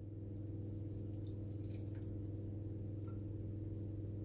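Melted butter poured from a saucepan onto oats and sugar in a glass bowl: a few faint wet drips over a steady low hum.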